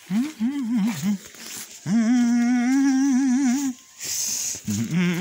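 A person humming a tune with no words: a short wavering phrase, then a long held note that wobbles in pitch at its end, and another held note starting near the end.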